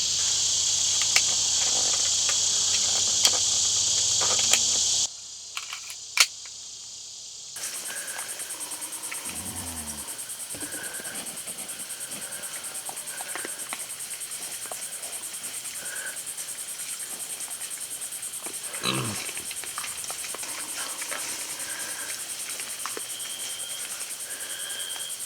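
Steady, shrill chorus of night insects in a rural outdoor setting. It changes abruptly about 5 s in and again about 7.5 s in, where the clip has been cut. Short, faint calls sit over it, and about three quarters of the way through one sound slides down in pitch.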